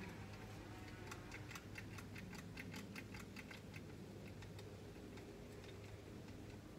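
Manual caulking gun clicking as its trigger is squeezed again and again to push out caulk: a quick run of faint clicks, about six a second, that thins out after about three and a half seconds, over a steady low hum.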